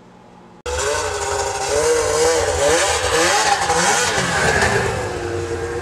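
A 2001 Arctic Cat ZR800 snowmobile's two-stroke engine running, its pitch rising and falling as the throttle is worked while it is ridden. The sound starts suddenly about half a second in.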